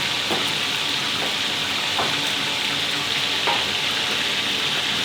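Crispy beef patties frying in hot oil, a steady sizzle, with a few faint ticks of the cook's utensils.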